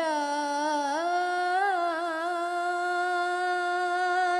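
A boy's solo voice in melodic Quran recitation (tajweed), holding one long drawn-out vowel on a high, loud note. It steps up slightly about a second in, wavers briefly, then holds steady. The judge hears this kind of prolonged vowel as strained and off-pitch, from a voice pushed too loud from the start.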